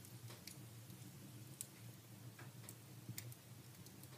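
Faint, irregular crackles and pops of logs burning in a wood stove, about half a dozen sharp snaps over a steady low hum.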